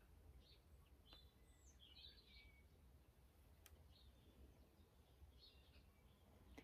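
Near silence: room tone with a low steady hum and a few faint, scattered bird chirps.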